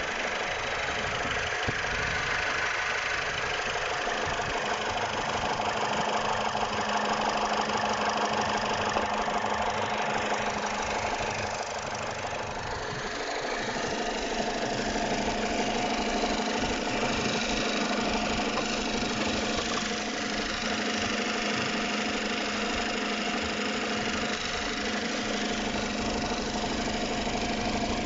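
BMW E90's N46B20 2.0-litre four-cylinder petrol engine running steadily, with a noise somewhere between a knock and a hum that the owner cannot place and that a service shop has judged to be normal.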